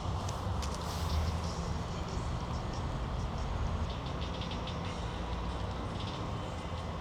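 Steady low rumble of city traffic, with the light clicks of footsteps on pavement.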